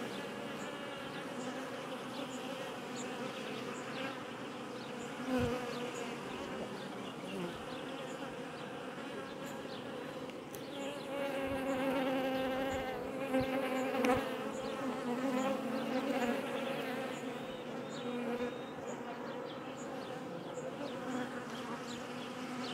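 Honeybees from an open hive buzzing steadily at close range, a dense, wavering hum that swells somewhat about halfway through. A few soft knocks of the hive tool on the wooden frames.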